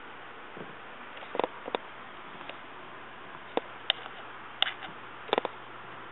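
Fingertips tapping and scratching on a hardwood floor: a dozen or so light, irregular taps.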